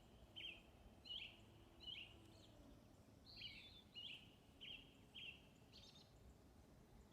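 A bird chirping over and over, a short high note about every two-thirds of a second, faint against a soft outdoor hush.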